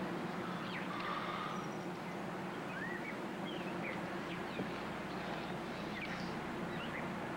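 Outdoor ambience of scattered short bird chirps over a steady hum and hiss.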